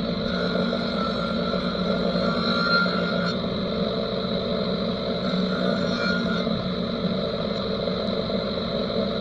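DeWalt jobsite table saw running at full speed with a steady high whine while a small block of wood is fed through the blade.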